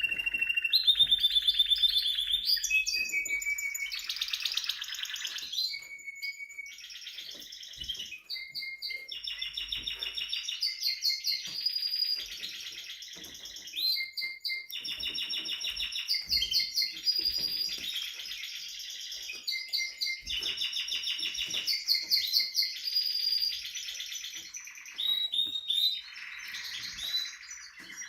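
Timbrado Español canary singing continuously: a long run of phrases, each a rapid string of repeated notes or rolls, switching to a new phrase every second or two.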